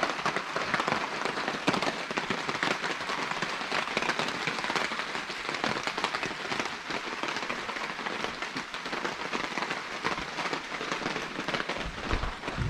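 Steady rain pattering down, a dense hiss made of many separate drop hits. There is a dull low thump near the end.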